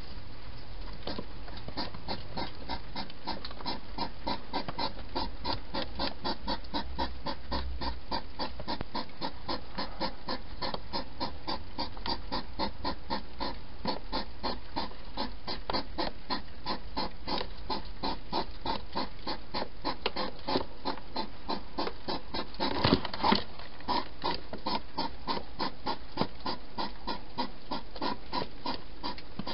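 Wild hedgehogs chewing food from bowls: a quick, steady run of wet smacking chomps, several a second, with a couple of louder knocks about three-quarters of the way through.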